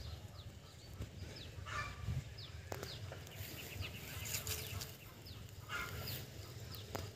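Birds chirping in short, quick notes that fall in pitch, repeated every half second to a second, over a faint low rumble with a few soft clicks.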